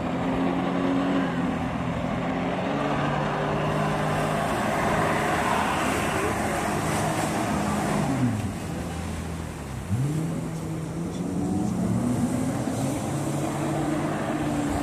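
Jet ski engine running hard to drive a flyboard's water jet, with the rush of spraying water. Its note shifts up and down; about eight seconds in it falls away, then picks up sharply again about two seconds later.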